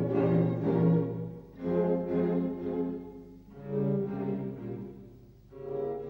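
Classical chamber music for bowed strings, with a low cello-range line prominent: slow, sustained phrases that swell and fade, a new one starting about every two seconds.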